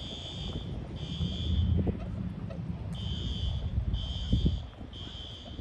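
High-pitched electronic alarm beeping. The beeps last just under a second each and come about once a second, with one beat missing partway through.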